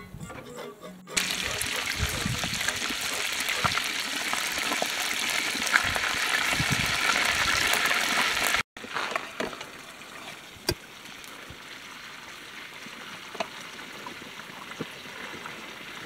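Butter frying in a hot metal pot, a loud steady sizzle that cuts off abruptly about eight and a half seconds in. After that comes a much quieter background with a few light clicks of a metal spoon against a steel bowl.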